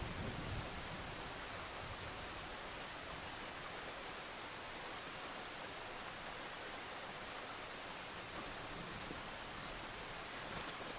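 Steady hiss of heavy rain in a thunderstorm, with the tail of a low thunder rumble dying away in the first half second.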